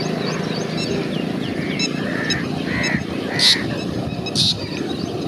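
Pheasant-tailed jacana calling: faint short high notes at first, then loud, short, high calls repeating about once a second in the second half. A steady low rumble runs underneath.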